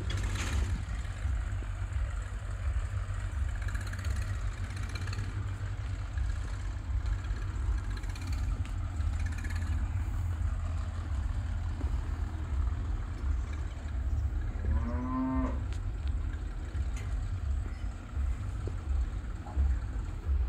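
Steady low rumble of wind and handling on a phone's microphone as it is carried while walking. About three-quarters of the way through comes one drawn-out pitched call, lasting about a second.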